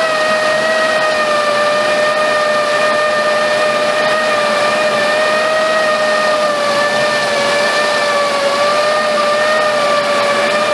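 A farm machine running steadily under load, its engine and drive giving a constant high whine that wavers only slightly in pitch.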